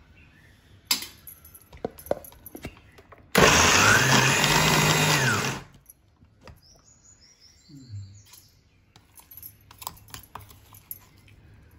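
Kitchen mixer grinder run in one short pulse of about two seconds, the motor spinning up and winding down as it coarsely grinds soaked dal in a steel jar. Light clicks and knocks of the lid and spoon on the steel jar come before and after the pulse.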